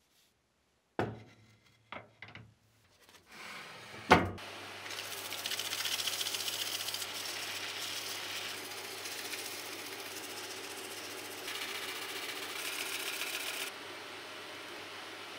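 A few sharp knocks in the workshop, then a loud click about four seconds in as a power tool starts. It runs steadily with a low hum and a hiss, which drops in level near the end.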